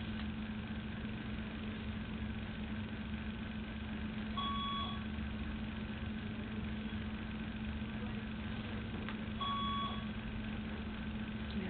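A steady machine hum with a short, high electronic beep about every five seconds, twice here.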